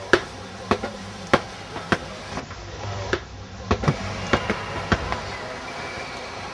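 Footsteps on hard stairs and flooring: sharp steps a little under twice a second at first, then quicker and uneven, as from more than one walker.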